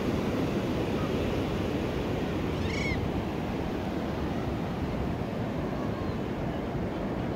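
Ocean surf washing steadily up a wet sand beach, with wind on the microphone. A single short bird call rises and falls once about three seconds in.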